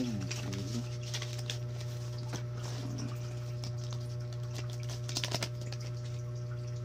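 Folded paper banknotes being unfolded and handled: dry crinkling and rustling with many small crackles, over a steady low hum.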